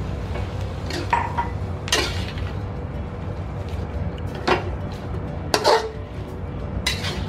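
Metal spatula scraping and clanking against a thin metal wok while stir-frying water spinach: five sharp clanks a second or so apart, over a steady low rumble.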